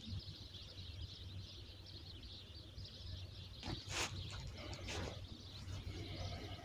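Faint open-air ambience with birds chirping in the distance over a low steady hum, broken by a few short handling noises about four seconds in and again near five.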